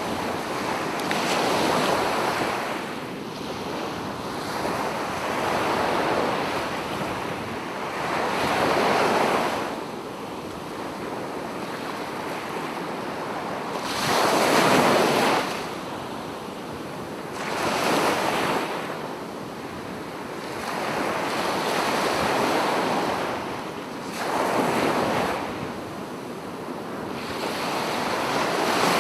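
Sea waves breaking and washing onto the shore in repeated surges, about one every three to four seconds, the loudest about halfway through.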